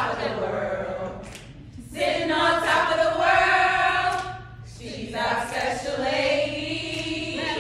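A line of sorority women singing together in unison, a cappella, in phrases with short breaks between them.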